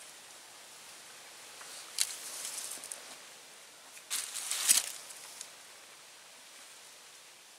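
Two short bursts of rustling and scraping from hands handling brake parts and grease, about two seconds in and again, louder, about four seconds in.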